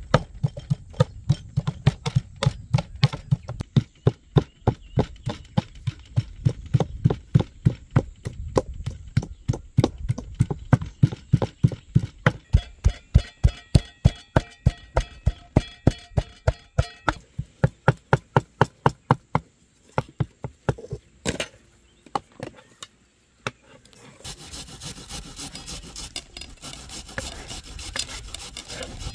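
A large cleaver knife chopping raw chicken breast on a wooden cutting board in a fast, even rhythm of several strokes a second, mincing the meat by hand. The chopping stops, a few loose knocks follow, and near the end a box grater scrapes steadily as an onion is grated.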